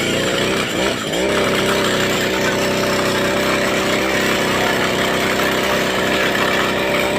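Small grass-cutter engine, the motor of a homemade toy car, revving up and down in quick blips, then holding a steady high-speed run from about a second in.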